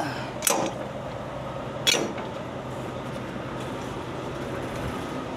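Semi-trailer landing-gear crank handle being handled: two sharp metal clanks about a second and a half apart, over a steady low hum.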